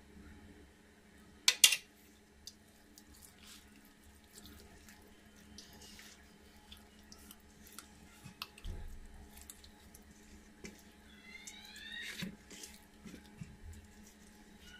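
Wet squelching and smacking of hands rubbing thick masala paste into a whole raw chicken in a steel bowl, with small clicks throughout. A sharp double knock comes about a second and a half in, and a few short high chirps sound near the end.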